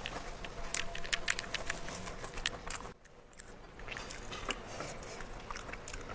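Close-up chewing and biting of smashed fried chicken and rice: many short, sharp crackles and mouth sounds, with a brief lull about three seconds in.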